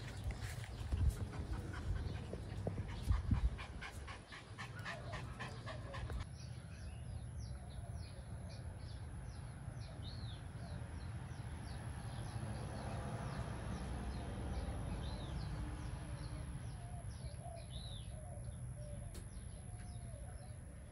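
A Chihuahua sniffing rapidly at a car's front bumper, with a couple of low thumps. About six seconds in the sound changes to a steady outdoor background with small birds chirping.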